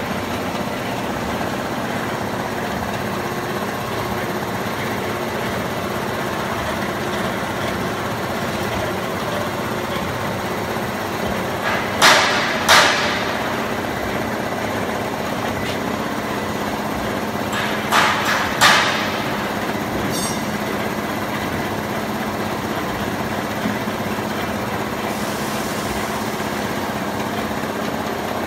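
MIC-18-1 rotary can filling and seaming machine running, with steady mechanical noise. Two pairs of sudden loud bursts come about twelve and eighteen seconds in.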